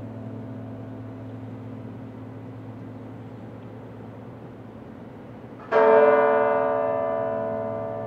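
A tower bell tolling slowly. The ring of the previous stroke fades over a steady deep hum, then a new stroke strikes sharply near the end and rings out, slowly dying away.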